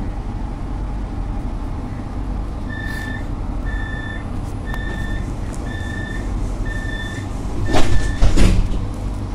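Warning beeps inside a stopped CAF tram: six short, evenly spaced beeps about once a second over the tram's steady hum, followed by two loud thumps near the end.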